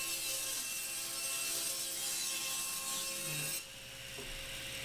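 SawStop table saw ripping a solid walnut desktop to final width, a steady cutting noise. About three and a half seconds in the cut ends and the sound drops to the saw running with no load.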